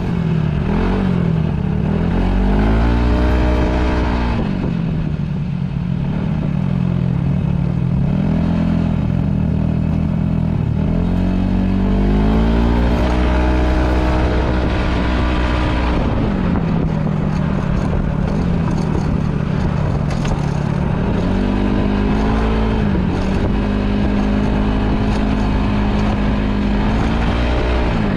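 Yamaha Majesty S scooter's small single-cylinder four-stroke engine running under way, its revs climbing and dropping back several times with the throttle through the CVT, which is fitted with Dr. Pulley weight rollers.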